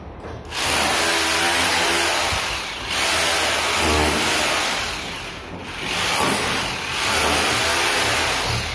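Bosch GBH 2-26 rotary hammer hammering into a brick wall, cutting out the recess for an electrical box. It runs in several long bursts with short let-ups between them.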